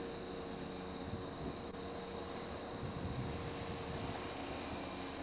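Diesel locomotives of an approaching freight train heard at a distance: a steady drone with a low rumble that builds from about halfway through, over steady insect buzzing.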